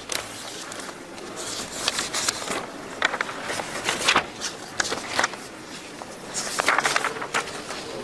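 Sheets of paper rustling and crackling as they are handled and turned over close to a desk microphone, in irregular bursts.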